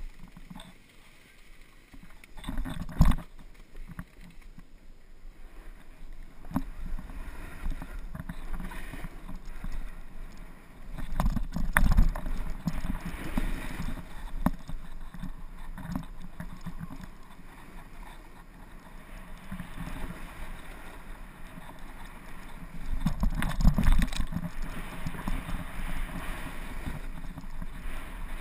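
Snowboard sliding and carving over packed, groomed snow, its edges scraping, with wind noise on the microphone. The scraping and rumble swell twice, about twelve seconds in and again near the end.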